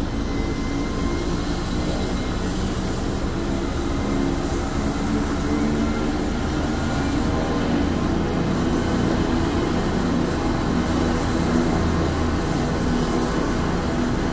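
AgustaWestland police helicopter running on the ground with its rotor turning: a steady engine and rotor noise with a thin high turbine whine that is strongest near the middle.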